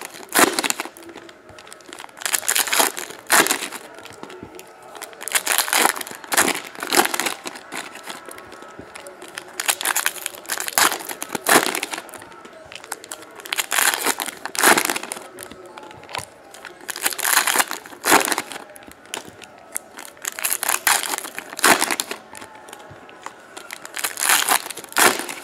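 Foil wrappers of 2014 Prizm football card packs being torn open and crinkled by hand, in clusters of crackling every three to four seconds with quieter handling between.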